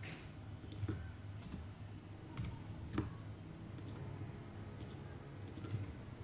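Computer keyboard keys pressed a few times, scattered sharp clicks as the code is edited, over a faint steady low hum.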